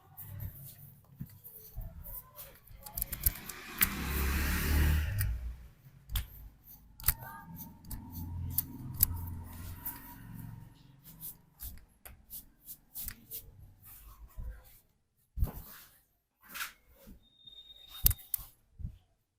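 Close-up head massage: hands rubbing through hair and over the scalp, loudest for a couple of seconds about three seconds in, with many sharp clicks and taps throughout.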